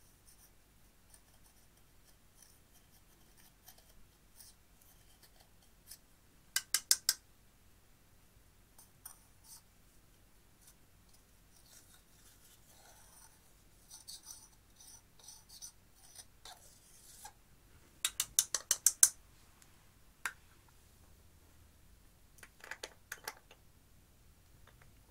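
A thin metal tool scraping and chipping pressed eyeshadow powder out of a plastic compact, with faint scratching between the taps. Short runs of sharp clicks from the tool tapping: about four a quarter of the way in, a quick run of about seven about three quarters in, and a few more near the end.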